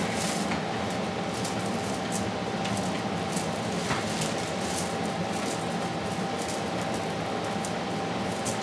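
Dry broomcorn straws rustling and crackling lightly in the hands as sections of the broom are lifted and bound with twine, a few faint ticks at uneven intervals. Underneath runs a steady room hum with a faint constant whine.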